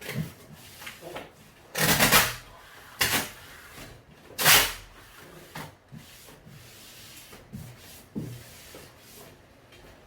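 Hands-on repair work: three short, loud scraping or rubbing strokes about two, three and four and a half seconds in, with lighter knocks and rubbing between.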